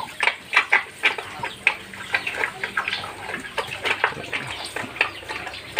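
Water from a garden hose pouring and splashing onto a sow's back, with many short, sharp animal calls scattered through it, several a second.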